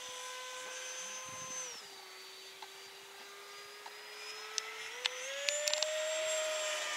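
Motor and propeller of a scratch-built radio-control airplane in flight, a steady whine. It drops in pitch about two seconds in as the throttle eases, then climbs again from about five seconds in, with a few sharp clicks near the end.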